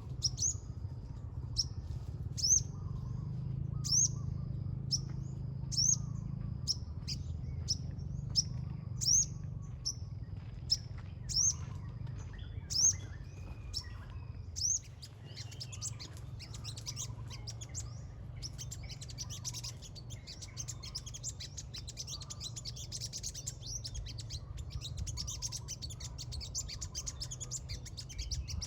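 Small birds chirping: a sharp rising chirp repeated about once a second, then, about halfway through, dense rapid twittering that continues to the end.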